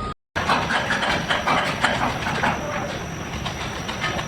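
Continuous irregular mechanical clatter and rattling, louder in the first two seconds, with a thin steady high whine.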